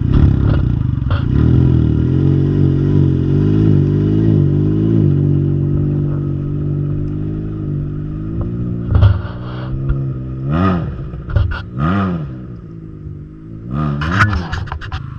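Can-Am Ryker 900's three-cylinder engine through an aftermarket RLS Predator Series exhaust, running loud with its pitch wandering, then revved in about four quick blips in the second half.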